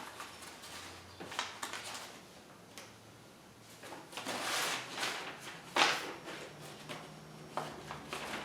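Metal parts of a portable bandsaw table being handled and fitted together during assembly: scattered clinks and knocks, a scraping shuffle about four seconds in, and one sharp clank just before six seconds, the loudest.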